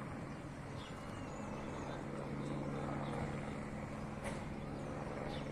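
Police helicopter droning in the distance overhead, a steady hum with a low, even tone that comes in about a second and a half in.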